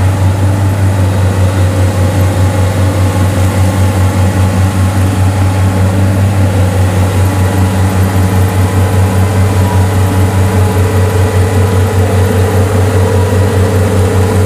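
Kubota combine harvester's diesel engine running steadily with a deep drone and a fast, regular throb.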